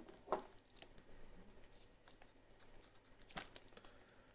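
Faint handling noise from a small plastic action camera being picked up and turned over: a few light clicks and taps, the loudest about three and a half seconds in.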